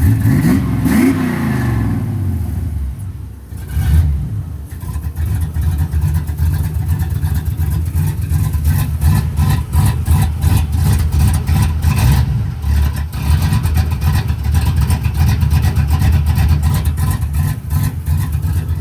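Vehicle engine running through a newly finished temporary exhaust. It is revved and settles back in the first few seconds, blipped once, then runs steadily with a rapid, even exhaust pulse.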